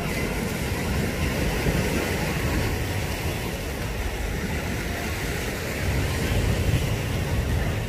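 Steady low rumble with an even hiss over it: wind buffeting the phone's microphone over the wash of sea waves on the shore.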